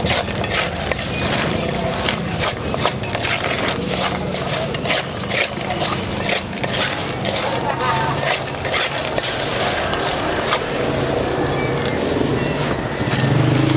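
Busy street-market ambience: background chatter of passers-by, scattered clatter, and the steady hum of nearby engines.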